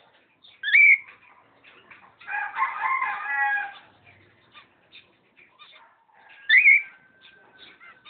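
Cockatiels give two loud, short rising whistled calls, one about a second in and one near the end. Between them a rooster crows once, less loudly, for about a second and a half. Faint chirps of small birds are heard throughout.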